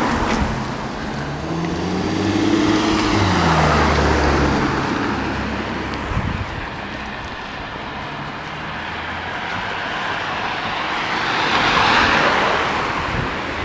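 Cars passing one after another on a wet road, tyre noise swelling and fading with each one. The loudest passes come a few seconds in, when an engine note drops in pitch as the car goes by, and again near the end.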